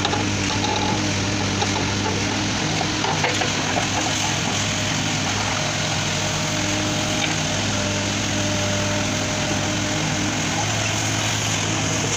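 JCB 3CX backhoe loader's diesel engine running at steady revs while the backhoe digs, with scattered small clicks and scrapes of soil and stones against the bucket.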